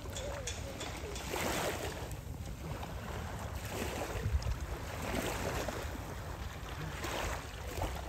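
Sea water sloshing and swishing in uneven surges as a person wades waist-deep through calm water, under a steady low rumble of wind on the microphone.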